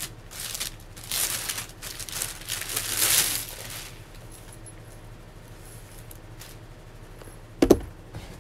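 Plastic packaging rustling and crinkling in a run of bursts as a parcel is unwrapped, dying down after about three and a half seconds. A single thump near the end.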